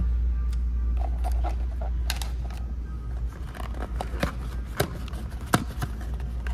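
Cardboard McDonald's Chicken McNuggets box being handled and opened: papery crackling and scraping, with two sharp snaps near the end as the flap comes free, over a steady low hum.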